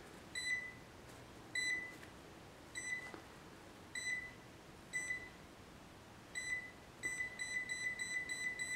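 Fieldpiece SC440 clamp meter beeping as its buttons are pressed: six short high beeps about a second apart, then from about seven seconds in a fast run of beeps, about five a second.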